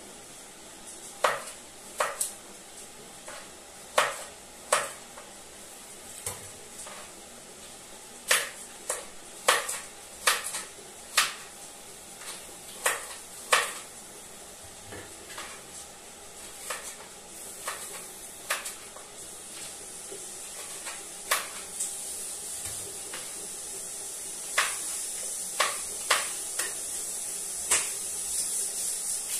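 Cooking on a stove: irregular sharp clinks and knocks of a utensil against a pan, over a frying sizzle that grows louder over the last several seconds.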